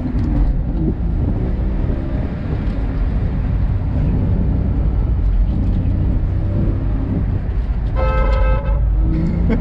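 Porsche Boxster's flat-six engine running hard through an autocross course, heard from inside the cabin as a loud low rumble that swells and eases with the throttle. About eight seconds in, a brief high, steady tone sounds for just under a second.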